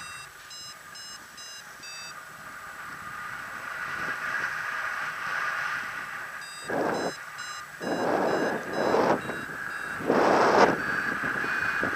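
Paragliding variometer beeping in quick short beeps, the sound it makes while the glider is climbing in lift. The beeps stop for a few seconds in the middle and resume. Several loud gusts of wind buffet the microphone in the second half.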